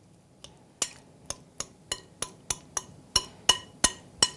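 Metal spoon clinking against a glass mixing bowl while stirring a thick shrimp and yogurt salad, about a dozen sharp ringing clinks at roughly three a second, starting just under a second in.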